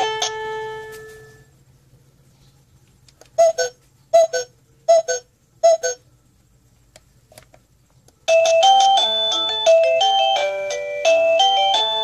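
SadoTech wireless doorbell receiver playing its chime tunes. The last note of one melody dies away in the first second, then come four short two-tone ding-dongs about a second apart. After a pause, a fast electronic tune of quickly changing notes starts about eight seconds in and keeps going.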